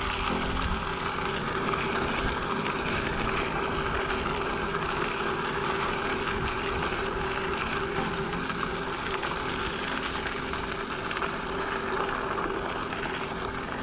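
Steady rushing wind noise on the camera microphone mixed with bicycle tyres rolling over a gravel trail, with a steady hum underneath.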